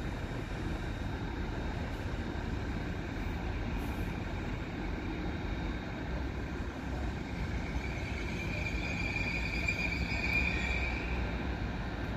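Red double-deck regional train pulling into the station: a steady low rumble, with a high squeal from the wheels and brakes that swells from about eight seconds in and fades again shortly before the end.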